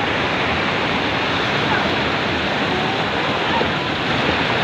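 Natural spring water cascading down rocks into a shallow pool: a steady, dense rush of falling and splashing water.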